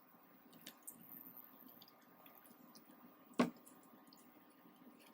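Faint kitchen handling at the stove: a few soft clicks and one sharper knock about three and a half seconds in, over a low steady hum.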